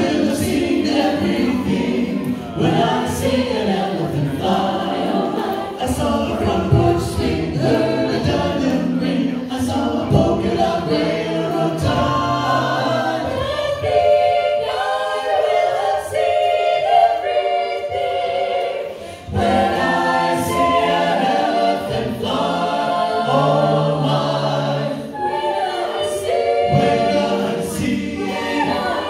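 Mixed-voice a cappella group singing in harmony through microphones, with no instruments. The low voices drop out for a few seconds midway, then come back in.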